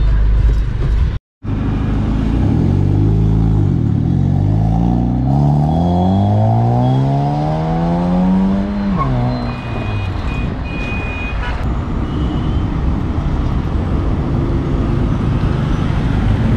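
Honda Civic with a loud exhaust accelerating: the engine note climbs steadily for about six seconds, then drops sharply, and the car carries on with a steady engine and road noise.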